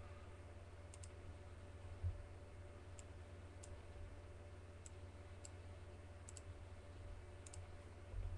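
Faint computer mouse clicks, several of them double-clicks, scattered every second or so over a low steady hum.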